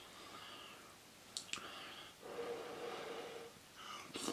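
A person eating a spoonful of food: soft mouth and breathing sounds, with two sharp clicks about a second and a half in and another click near the end.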